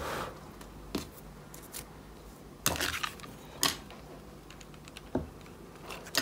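A handful of short clicks and knocks from a hot glue gun and ribbon being handled, picked up and set down on a stone tabletop, the loudest knock near the end.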